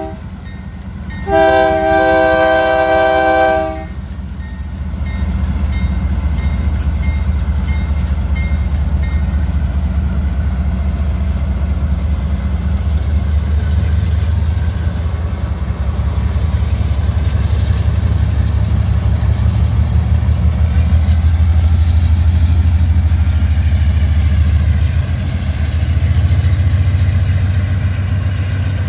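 Ferromex GE AC4400CW diesel locomotives passing a crossing: the end of one horn blast, then a second chord blast of about two seconds, followed by the loud, steady low rumble of their 16-cylinder diesel engines working as they pull a departing freight train.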